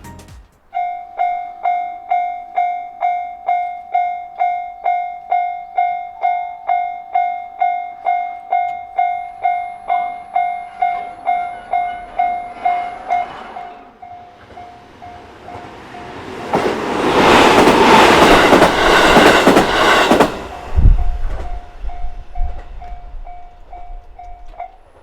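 Japanese railway level-crossing bell ringing steadily about twice a second, growing fainter about halfway through. An electric train on the JR Minobu Line then passes over the crossing for about four seconds with a loud rushing sound, and the faint bell rings on until it stops near the end.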